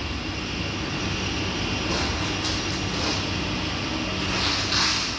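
Steady whirring hum of a CNC turning lathe and the surrounding workshop machinery running, with a few short hisses about two, three and four and a half seconds in.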